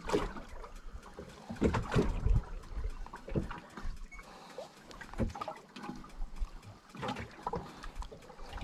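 Small waves slapping irregularly against the hull of a fishing boat, in uneven surges every second or so.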